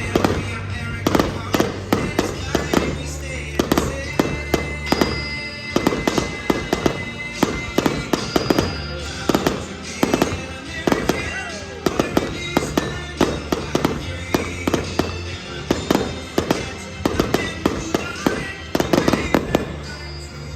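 Fireworks bursting in quick succession, many sharp bangs and crackles one after another, over music with held bass notes.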